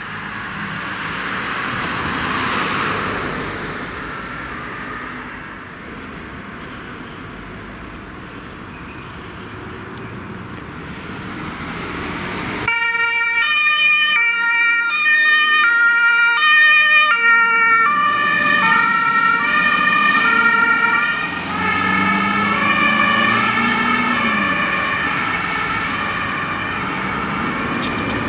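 Traffic and a heavy truck passing with blue lights, then about halfway through a German two-tone fire-service siren (Martinshorn) on a Mercedes Sprinter fire equipment van cuts in suddenly. It alternates between its two pitches about twice a second, and the tones smear and drop slightly as the van passes and drives away.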